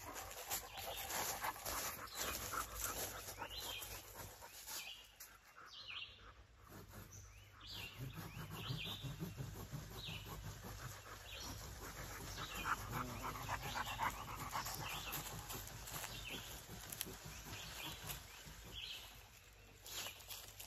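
A dog panting close by, in stretches, with short high chirps scattered throughout.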